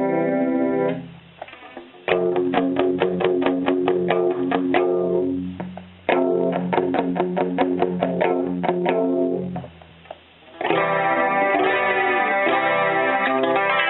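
Electric guitar played through a Roland Jazz Chorus combo amplifier. It opens with a held chord, then two runs of quick strummed chords, then sustained ringing chords near the end.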